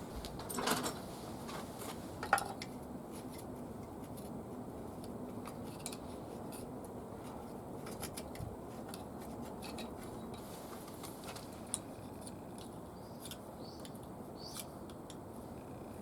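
Scattered light metallic clicks and clinks of hand tools and small parts being handled, over a steady low background hiss. The two loudest clinks come within the first few seconds.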